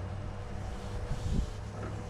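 Wood lathe running with a steady low hum while turning a mahogany handle, with a couple of low knocks about a second in.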